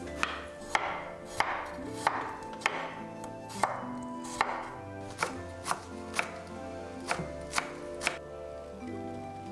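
Kitchen knife chopping eggplant, garlic and scallions on a wooden cutting board: about a dozen crisp knocks of the blade on the board, roughly one every half second, ending near the end.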